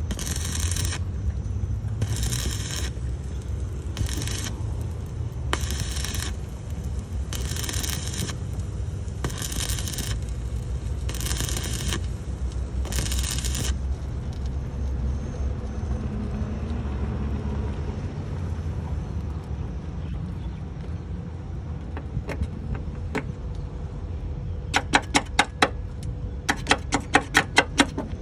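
Stick (arc) welding on a lorry's steel body panel: the electrode arc crackles and sizzles in short bursts about a second apart, stopping about halfway through, over a steady low hum. Near the end comes a fast run of sharp metallic taps on the metal.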